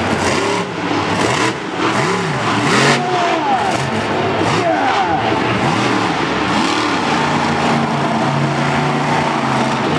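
Monster truck engine revving hard in repeated rising-and-falling blips, settling to a steadier drone about seven and a half seconds in. A couple of sharp bangs sound about one and a half and three seconds in as the truck drives over crushed cars.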